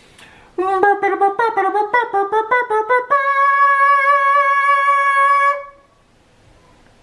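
A man singing a short tune: a string of quick notes rising and falling, then one long held note that stops about five and a half seconds in.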